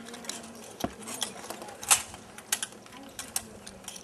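Rattan swords striking shields and armour in SCA armoured combat: several sharp, separate knocks at irregular intervals, the loudest about two seconds in, with light metallic clinking of armour between them.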